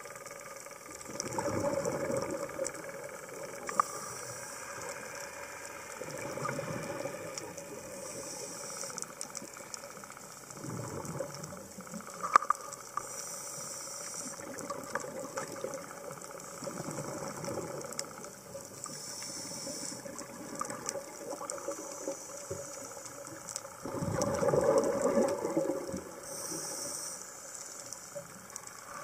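Scuba diver breathing through a regulator underwater: a gurgling rush of exhaled bubbles and a high hiss of the regulator, repeating in a slow cycle about every five to six seconds. A couple of sharp clicks stand out along the way.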